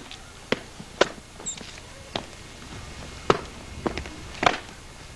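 Footsteps of hard-soled shoes on cobblestones: a series of sharp, irregularly spaced steps.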